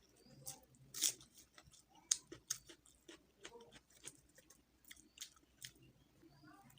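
Close-mouthed chewing of a mouthful of rice mixed with kharkol leaf paste: irregular wet smacks and clicks, with the loudest one about a second in.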